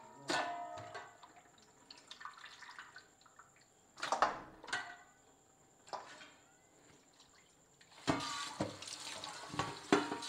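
Water at a kitchen sink as washed raw chicken pieces are handled and left to drain: a few splashes and knocks, then water running steadily for the last two seconds or so.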